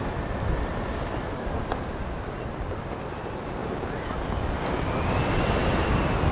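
Wind rushing and buffeting over the microphone of a paraglider in flight, a little louder in the second half as the glider banks into a turn.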